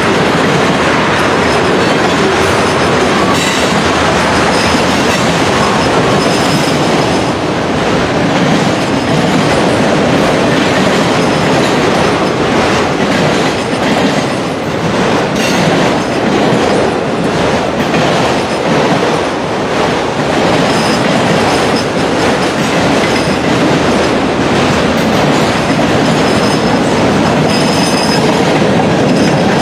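Freight cars of a long mixed freight train rolling past at speed: a steady, loud rumble of steel wheels on rail, with rhythmic clicking as the wheels cross rail joints.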